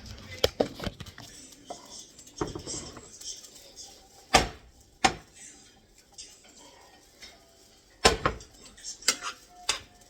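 A metal kitchen utensil knocking and scraping against cookware in irregular clanks while fried rice is handled. The loudest knocks come about four and eight seconds in, with a quick run of clinks near the end.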